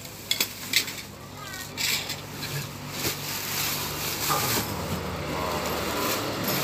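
Plastic packaging wrap rustling and crackling as it is pulled off a bag, with sharp crackles in the first two seconds and again around three seconds in. A low steady hum joins about two and a half seconds in.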